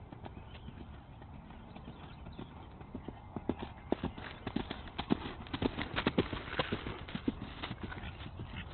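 Ridden horse's hoofbeats on grass, a quick run of thuds that grows louder as the horse comes close, is loudest a few seconds in, then fades as it moves away.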